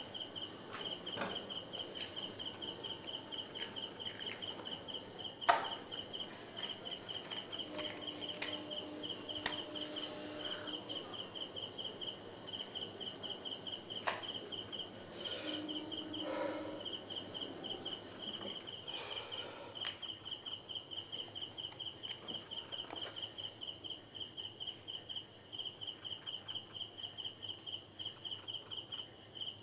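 Crickets chirping steadily in rapid pulse trains, a higher-pitched caller in short bursts over a lower, continuous one. A few sharp knocks cut in about five and a half, nine and a half and fourteen seconds in.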